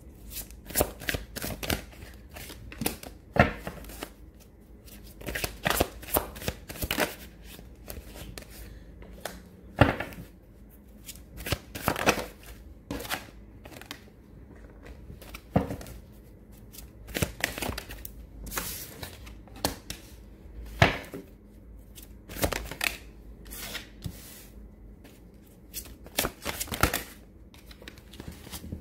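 A deck of tarot cards handled by hand: shuffled, with cards drawn off and laid down on a table, making irregular sharp snaps and flicks of card against card, some in quick runs.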